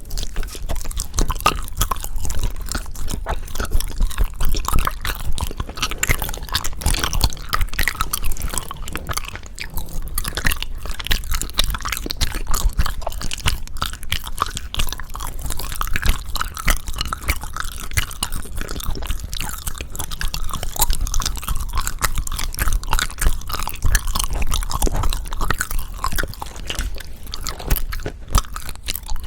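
Close-miked chewing of wagashi-style sweets (hwagwaja): continuous wet mouth sounds packed with small clicks, with no pauses.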